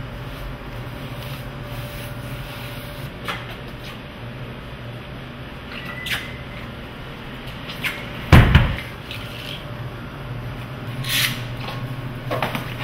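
A large block of clear ice being handled: scattered knocks and scrapes, and one heavy thud a little past eight seconds in, over a steady low hum.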